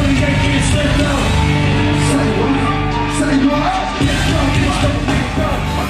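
Live rap concert through a club PA: loud amplified music with a steady bass line and rapped, shouted vocals over it.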